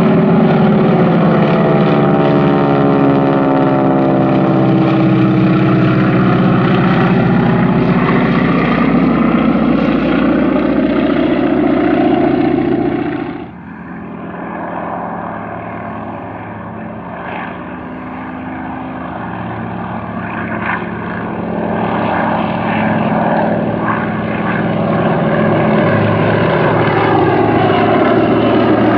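Piston engines of several propeller-driven aerobatic planes flying in formation, a loud drone whose pitch sweeps as they pass overhead. About halfway through it drops suddenly to a quieter, more distant drone, which builds again toward the end.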